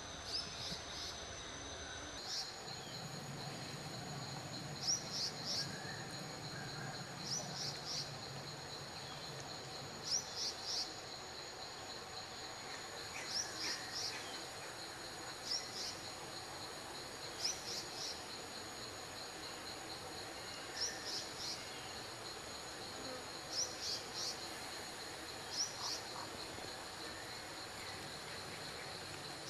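Insects trilling steadily, high-pitched, with a short cluster of quick high chirps repeating about every two to three seconds.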